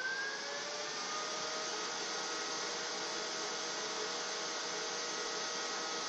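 Neato Botvac Connected robot vacuum's suction fan spinning up, its whine rising in pitch in the first second, then running steadily.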